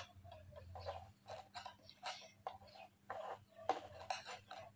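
Thin metal knitting needles clicking and tapping against each other in small, irregular ticks as stitches are slipped from one needle onto double-pointed needles.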